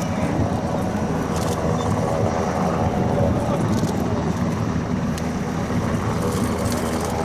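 An engine or power unit running steadily, with a few short metallic clicks as belted 20mm ammunition is handled at the gun's feed.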